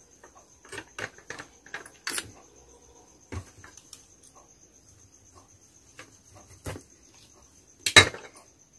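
A knife and fingers tapping and knocking on a plate while fried bondas are slit open and stuffed by hand: a scatter of short clicks, the loudest near the end. A faint steady high cricket trill runs underneath.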